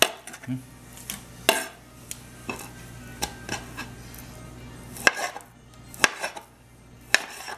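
A chef's knife cutting raw chicken breast on a glass cutting board, the blade striking the glass in about six sharp, irregular clicks.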